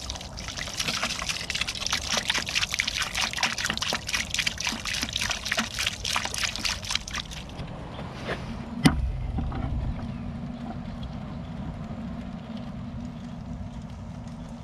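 Phosphoric acid poured from a plastic jug into a plastic bucket, splashing over corroded generator heat-exchanger parts for about seven and a half seconds. A single sharp knock follows, then a faint steady fizzing as the acid bubbles on the corrosion and barnacles.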